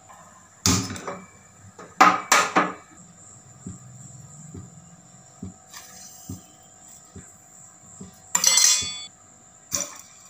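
Stainless-steel kitchen vessels clanking and clinking: a sharp knock about a second in, two more close together around two seconds, faint light taps in between, and a longer ringing metal clatter near the end.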